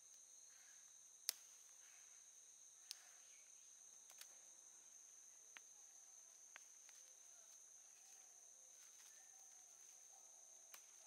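Faint, steady, high-pitched insect chorus, crickets or similar, with a few short sharp clicks, the loudest about a second in.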